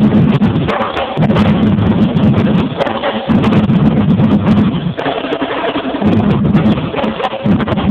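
Marching drumline playing: rapid stick strokes throughout, with the deep bass drums pounding in stretches of a second or two between short breaks.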